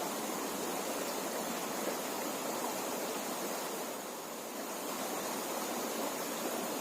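Steady rush of flowing river water, dipping slightly for a moment a little past the middle.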